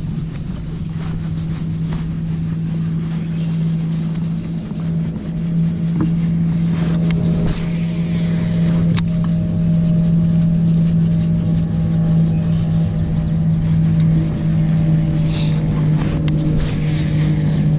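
A boat motor running with a steady low hum, unchanging in pitch, with a few sharp clicks over it.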